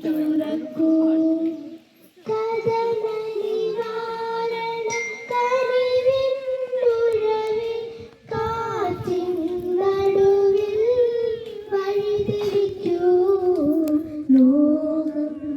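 A child singing a slow Malayalam song in long held notes, breaking off briefly about two seconds in and again about eight seconds in.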